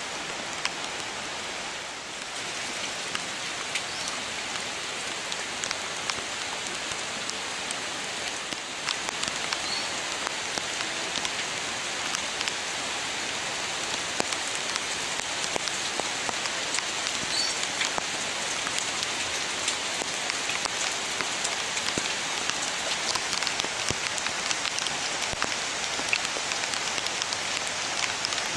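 Heavy rain falling steadily: a dense hiss with many small drop taps, growing a little louder about nine seconds in.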